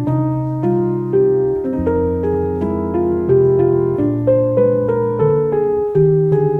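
Background music: a soft piano melody played note by note over sustained chords.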